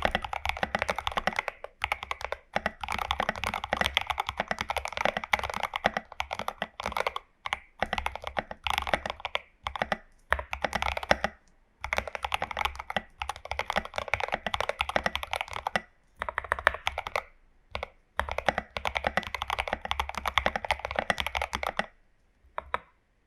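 Fast typing on a tape-modded Glorious GMMK Pro mechanical keyboard with lubed and filmed Prevail Epsilon switches, lubed Owlab stabilizers and SA-profile keycaps. The keystrokes come in dense runs of a few seconds, broken by short pauses, and stop shortly before the end.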